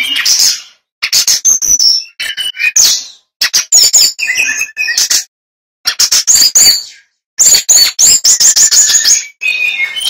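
Male brown-chested jungle flycatcher singing loudly: fast runs of sharp chirps and high whistles in bursts of one to two seconds, broken by short pauses.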